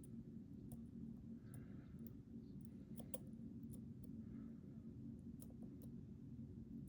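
Faint, irregular small clicks of a lock pick working the pins inside a Mul-T-Lock Interactive LFIC cylinder, over a steady low hum.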